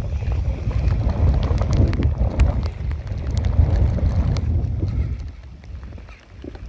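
Wind buffeting the microphone, a heavy uneven low rumble, with scattered sharp ticks over it; the buffeting eases about five seconds in.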